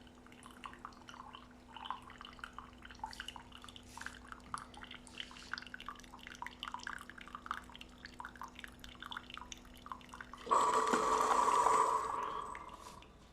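Coffee machine brewing: a steady hum with irregular dripping of liquid, then about ten seconds in a sudden loud hissing sputter that lasts about two seconds and fades away.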